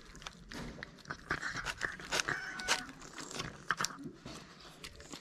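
Two cats eating wet meat food from a plastic tub: quick, irregular chewing, crunching and lip-smacking clicks.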